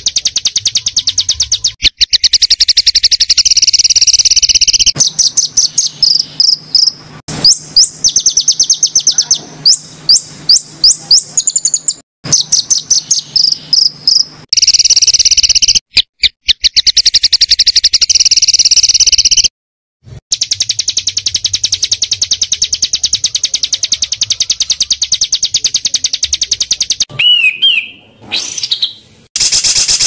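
Small songbird singing dense, very rapid trills and chattering strings of notes, the fast-fire 'tembakan' material of a masteran tutor-song recording. A few clear sliding whistles come in around the middle, and the song breaks off abruptly into short silences several times.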